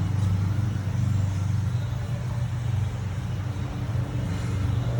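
A motor vehicle engine idling with a steady low hum.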